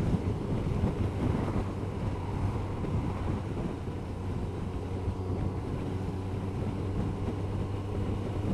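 Kawasaki ZZR-1200's inline-four engine running at a steady cruise, with wind buffeting the camera microphone.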